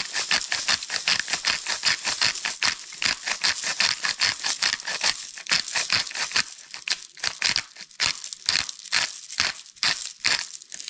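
Pink sea salt being dispensed from its container into a plastic bowl: a rapid run of crisp rattling clicks, several a second, that thin out after about seven seconds.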